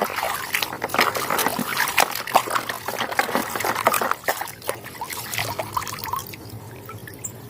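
Water trickling and splashing while a muddy toy is washed, with many small clicks and knocks as it is handled; the activity tails off over the last second or so.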